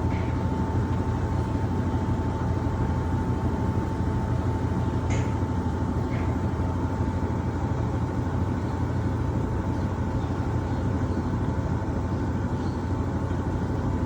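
Electrolux LTM16 washing machine running steadily: a dense low rumble with a constant high whine, and a few faint clicks.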